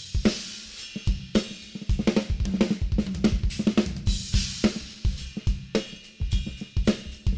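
Acoustic drum kit played as a groove with fills: bass drum, snare and hi-hat strikes under washing cymbals, several hits a second. Cymbal crashes swell near the start and again about four seconds in.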